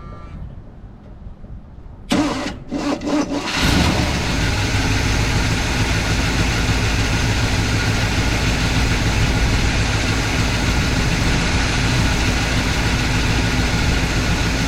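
Wrecker truck's gasoline engine cranking on the starter for about a second and a half, catching and then running steadily. The engine sounds like it has a miss, just after a new ignition control module went in.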